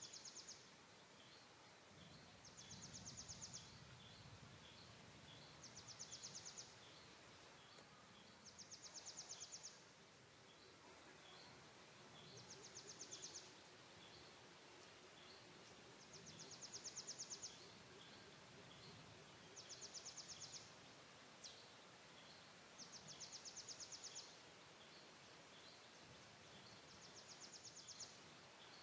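Faint outdoor ambience with a high, rapidly pulsing trill about a second long that repeats roughly every three seconds, with small chirps ticking between the trills.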